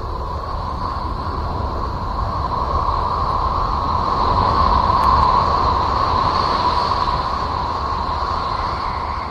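'Sound of Uranus' space audio: a steady, noisy drone with a humming band in the middle and a fainter high hiss over a low rumble. It swells slowly to a peak about five seconds in, then eases off.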